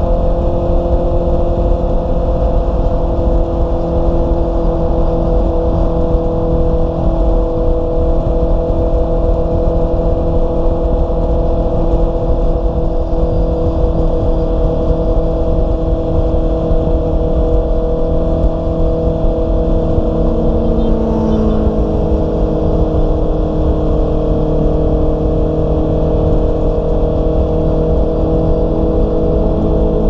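Honda CB650R's inline-four engine running at a steady highway cruise, its note holding a nearly even pitch, with wind rumbling on the microphone.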